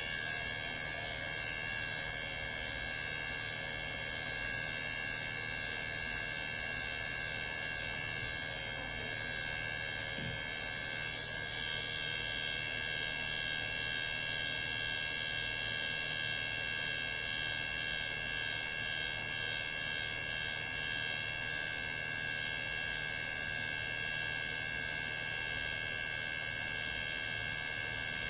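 Motor-driven rotor siren running at a steady pitch: a high whine made of several tones stacked together, with no rise or fall.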